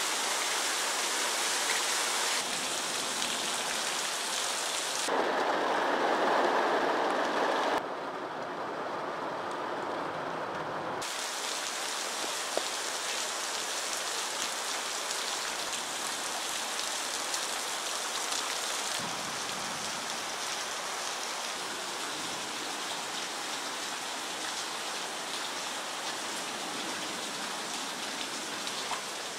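Heavy rain falling, an even hiss that changes abruptly several times and is loudest and fullest for a few seconds about five seconds in.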